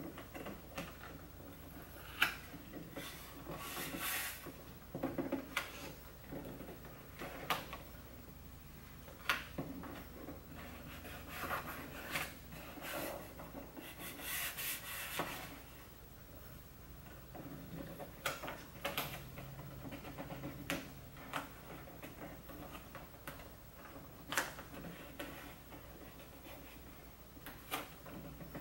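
Hands rubbing and smoothing carbon-fiber vinyl wrap film over a plastic center console trim piece on a wooden workbench, in irregular rubbing strokes with a few sharp clicks.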